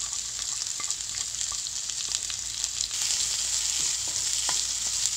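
Chopped onions, green chillies and curry leaves sizzling steadily in hot oil in a non-stick kadai as they are stirred, with light scrapes and clicks of the spoon.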